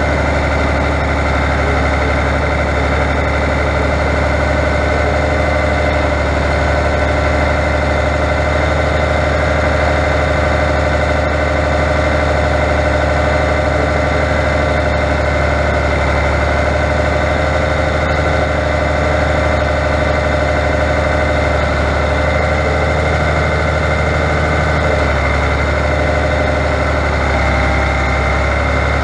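Fiatagri 100-90 tractor's diesel engine running steadily, heard close up from the driver's position while the tractor drives with a front loader carrying round hay bales. The engine note shifts slightly near the end.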